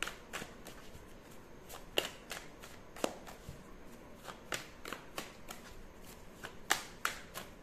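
A tarot deck being handled and shuffled by hand: irregular soft card clicks and snaps, with a few sharper ones scattered through.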